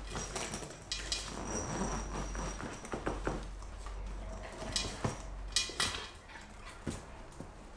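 A puppy working its way out of a soft-sided fabric pet carrier: scattered scratching, rustling and small clicks and knocks, with a few sharper knocks about five to six seconds in as it gets free and its paws hit the hard floor.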